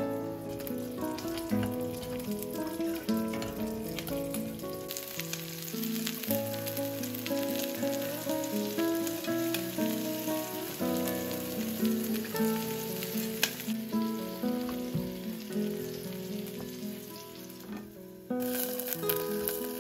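Stuffed fried-tofu pouches (kinchaku gyoza) and leek pieces sizzling in oil in a frying pan and small pot, under background music with held notes. The sizzle cuts out briefly near the end.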